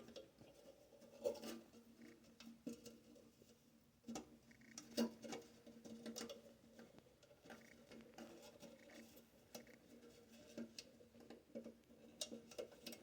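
Faint scattered clicks and small knocks of hands working a new rubber seal onto a toilet's plastic flush-valve canister, over a faint steady hum.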